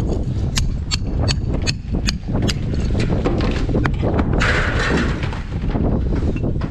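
Club hammer striking old bricks and mortar of a soldier course to break it out: a series of sharp knocks, about two to three a second, with a short gritty rush of loosened brick and mortar about halfway through.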